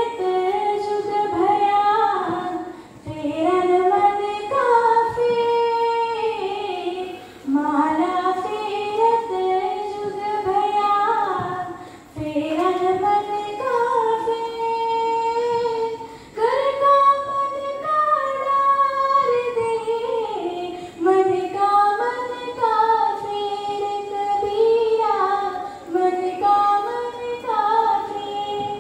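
A girl singing solo into a microphone with no accompaniment, in long held phrases broken by short pauses every four to five seconds.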